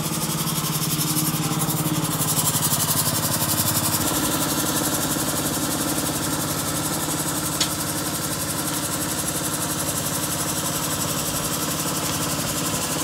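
Small gasoline engine of a roofing ladder hoist running steadily, its note shifting slightly about four seconds in.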